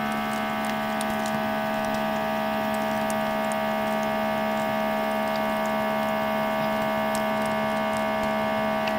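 Vacuum sealer running with a steady hum while it seals one edge of a plastic bag, with faint scattered clicks.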